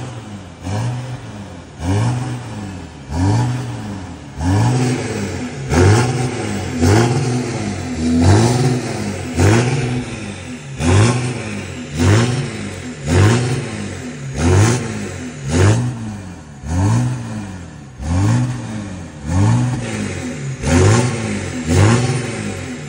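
Volkswagen Amarok V6 turbodiesel with a full stainless aftermarket exhaust (downpipe and diffuser muffler) being revved in quick throttle blips. The engine note rises and falls back about once a second, over and over.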